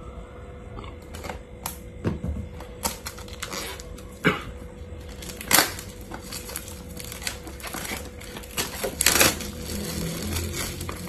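Hands unpacking a small product box for a mini camera: a run of light clicks, taps and rustles of card and plastic packaging, with a few louder snaps about four, five and a half and nine seconds in.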